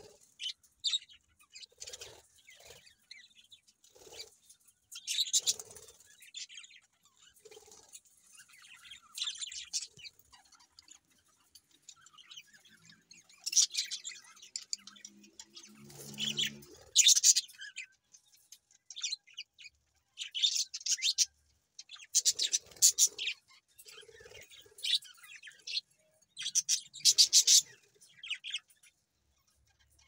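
Budgerigars chirping and chattering in short, repeated bursts of high-pitched calls, busier in the second half. A brief lower-pitched sound comes about halfway through.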